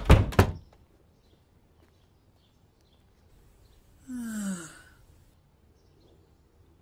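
A voice sighing once, a breathy, falling 'haah' about two-thirds of a second long, as of someone settling down to rest.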